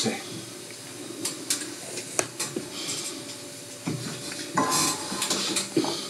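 Scattered light clinks and knocks from an aluminium drink can and glassware being handled and set down.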